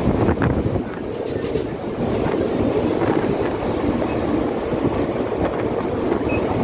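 Mumbai suburban electric local train running at speed: a steady rumble of wheels on the rails, with a few clicks of the wheels over rail joints in the first second or so.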